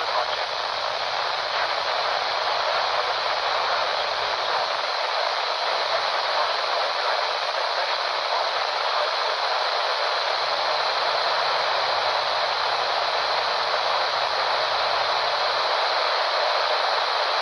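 Steady hiss of static from a RadioShack 12-254 weather radio's speaker, the noise of a weak, distant NOAA Weather Radio signal on 162.450 MHz with no voice on it.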